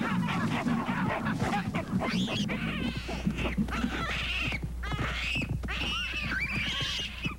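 Baboons screaming and barking in a scuffle: many short, shrill cries in quick succession, rising and falling in pitch.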